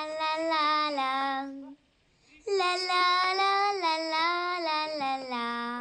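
A child's high voice singing alone with no accompaniment: two long phrases of held, gliding notes, broken by a short breath pause about two seconds in.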